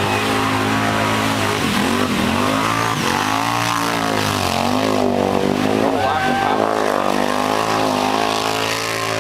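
Kawasaki Brute Force 750 ATV's V-twin engine revving up and down as the quad churns through a deep, water-filled mud pit. The revs drop and climb again several times, most clearly two to four seconds in.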